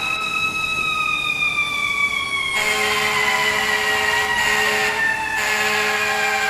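Fire engine's Q siren winding down, its whine falling slowly in pitch. The truck's air horn sounds over it in long steady blasts, one cutting in about two and a half seconds in.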